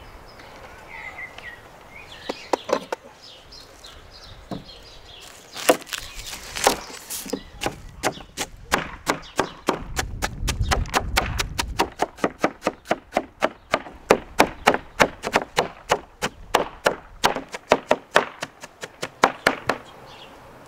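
Cleaver chopping onion on a wooden cutting board: a long run of quick, even strokes, about three or four a second, beginning a few seconds in after a few scattered knocks.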